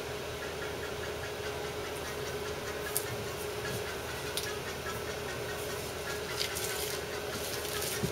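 Steady room hum with an even hiss and a constant low tone, broken by a few faint clicks.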